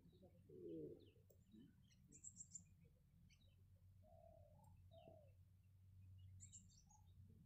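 Faint bird calls: scattered high chirps and a few lower, short calls, over a faint steady low hum.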